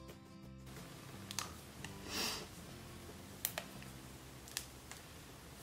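Background music that stops just under a second in, then faint handling sounds of fingers working a braid of hair: a few light clicks and one brief rustle about two seconds in.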